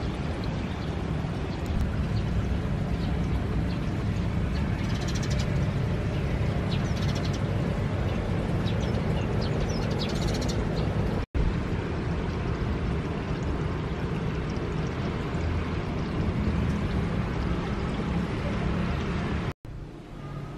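Steady outdoor background noise, heavy in low rumble. Brief high chirps come through in the middle. The sound drops out abruptly twice.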